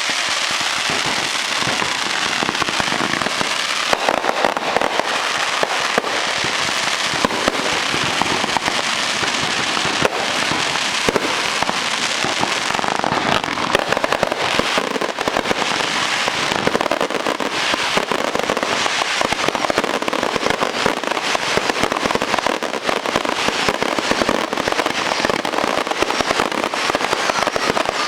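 Fireworks going off continuously, a dense stream of rapid crackling pops with no break.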